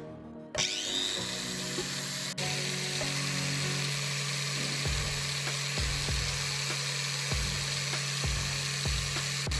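A small electric power tool switches on suddenly and runs steadily with a high, hissing whine. The sound settles into a steadier hum about two seconds in.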